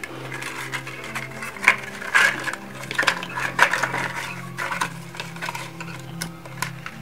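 Stiff cinnamon leaves rustling and crackling as hands press them into a clay pot to line it, with irregular small clicks of leaves and fingers against the pot, over a steady low hum.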